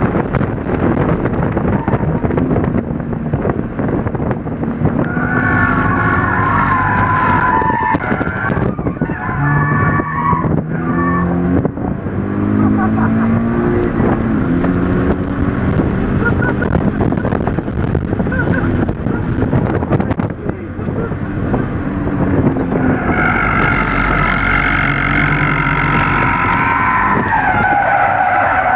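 Sports car engine revving hard with its pitch rising and falling, and tires squealing as the car spins donuts, heard from inside the cabin. The squeal comes in two long stretches: one a few seconds in, and another near the end.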